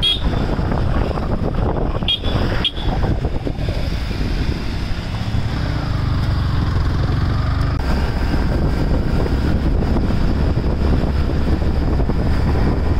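Motorcycle riding on the road: steady engine and road noise with a heavy low-end haze like wind on the microphone.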